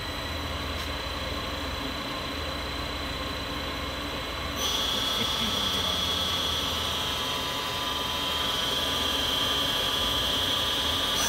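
Star SA-12/16 Swiss-type CNC lathe running with its spindles turning at 500 RPM: a steady machine hum. About four and a half seconds in, it gets louder and a high steady whine joins it.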